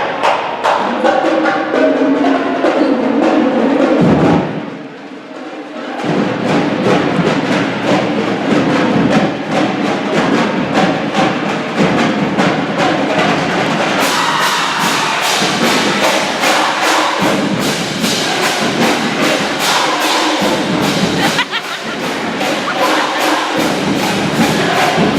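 School marching band playing, its drums keeping a steady driving beat. The music drops away briefly about four seconds in, then resumes, with the drum strokes coming faster and denser from about the middle on.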